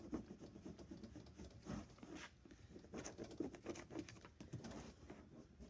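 Squeegee rubbed in short, irregular strokes over a clear transfer sheet on printed heat-transfer vinyl, pressing out air bubbles: a faint scratching and rustling.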